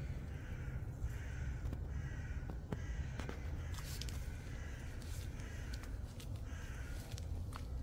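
Repeated harsh bird calls, roughly one a second, over a steady low rumble.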